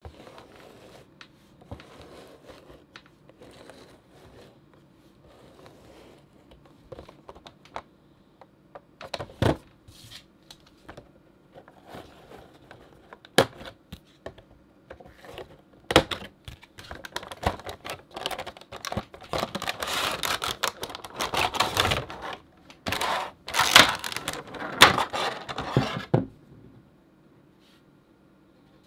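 Hands handling and opening a Funko Pop vinyl figure's cardboard window box: scattered light taps and a few sharp knocks, then about ten seconds of dense rustling, scraping and clicking of the cardboard and plastic packaging as the figure is taken out.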